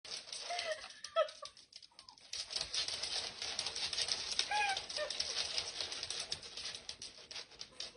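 A few short, arching chirp-like animal calls over continuous scratchy rustling and clicking.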